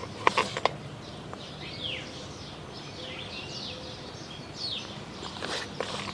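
Small birds chirping, a string of short, quick, downward-sweeping chirps, with a few sharp clicks in the first second.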